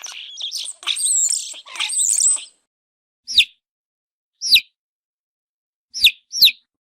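Baby chicks peeping: a dense flurry of high chirps for about two and a half seconds, then silence broken by four single peeps, each falling in pitch.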